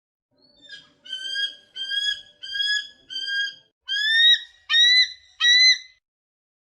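An animal calling: a run of about eight short, high, clear calls in quick succession, each bending up then down, the first faint and the last three the loudest.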